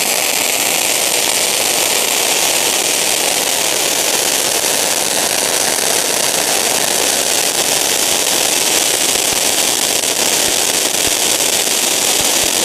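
Ground fountain firework (a "Ding Dong" fountain) spraying sparks with a loud, steady hiss.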